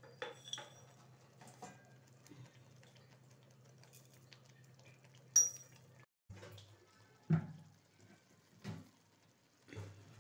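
Steel skimmer clinking and scraping against an iron kadai of simmering spinach gravy: a few sharp clinks, the loudest about five seconds in, then softer knocks. A steady low hum runs underneath and stops about six seconds in.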